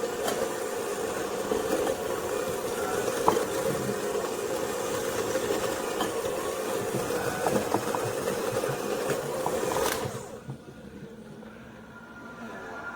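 Electric hand mixer running steadily as it beats cookie dough, switched off about ten seconds in.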